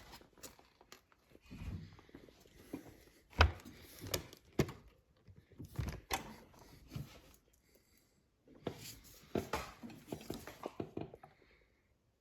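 Scattered knocks, clunks and scraping of hard objects being handled and set down, loudest in a sharp knock about three and a half seconds in, with a short pause about two thirds of the way through.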